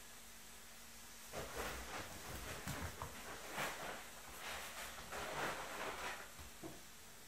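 Six-week-old Smooth Collie puppies moving and scuffling on a wooden floor: a run of soft scraping, rustling sounds that starts about a second and a half in and stops shortly before the end.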